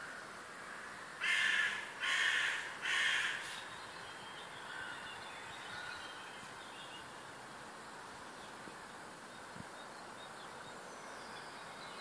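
A crow caws three times in quick succession, harsh and loud. Fainter songs of small birds from the dawn chorus carry on behind it.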